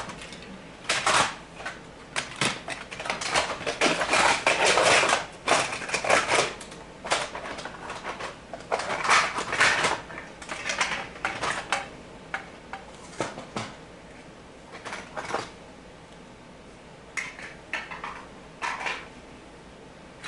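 Rummaging through a box of HO scale model trains: irregular clattering and rustling as the models and packaging are moved about, busiest in the first ten seconds, dying down for a few seconds and picking up again near the end.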